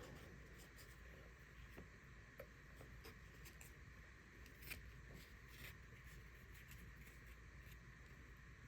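Near silence with a few faint ticks and soft rustles: trading cards and packaging handled on a table.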